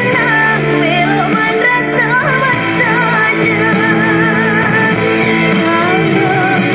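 A pop song with singing and guitar played loudly through a JINLONG JL-1938 portable Bluetooth karaoke speaker with an 8-inch woofer.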